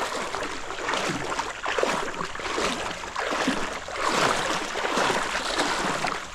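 Creek water splashing and rushing unevenly, in close surges.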